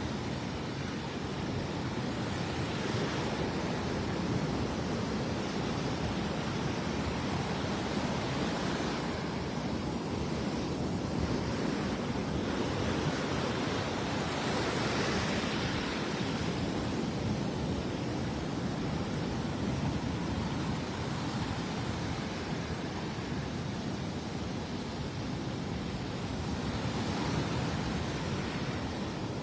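Gulf surf washing onto the beach: a steady rush of breaking waves that swells every several seconds.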